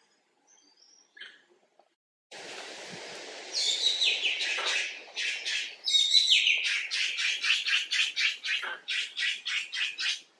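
Long-tailed macaque screaming: two high shrieks that fall in pitch, then a fast run of shorter screams, about three a second, that stops just before the end. A steady hiss comes in about two seconds in, under the screams.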